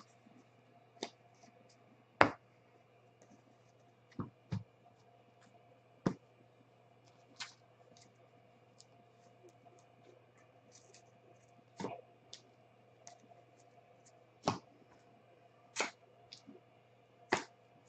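Trading cards being gathered and laid out on a table for a recap: scattered light clicks and taps, about a dozen at irregular moments, over a faint steady low hum.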